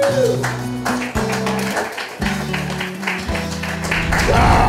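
Background music led by a plucked guitar, its notes changing about once a second. Near the end a man yells loudly.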